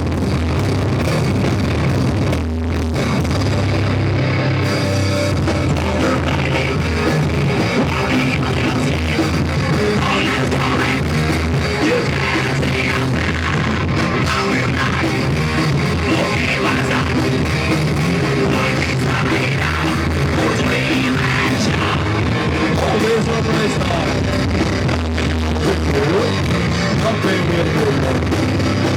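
Rock band playing live, loud and steady without a break, in a rough audience recording with poor sound.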